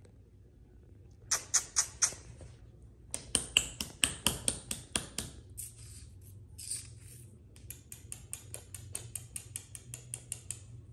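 A kitten grooming, licking its paw: quick rhythmic licking strokes, about five a second, in several runs with short pauses between them.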